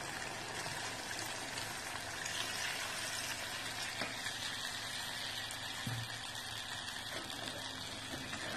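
Mutton pieces cooking in their own rendered fat in a metal pot, a steady sizzling hiss as lukewarm water goes in and the pot simmers. A couple of faint knocks of a steel ladle against the pot.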